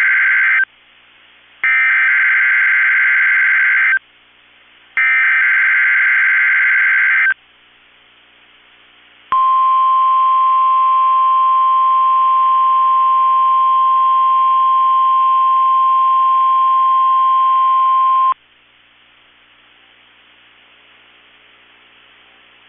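Emergency Alert System SAME data header on NOAA Weather Radio: the end of one burst of screechy digital data, then two more bursts of about two and a half seconds each with short gaps between. After a pause of about two seconds comes the 1050 Hz warning alarm tone, one steady pitch held for about nine seconds, which stops suddenly and leaves faint hiss.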